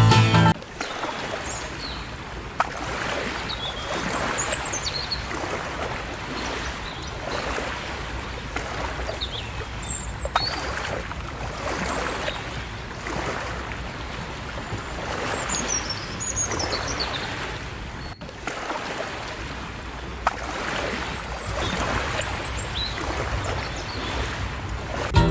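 Steady rolling noise inside a moving passenger train, the wheels running on the track, with a few sharp clicks and some short, faint high squeaks.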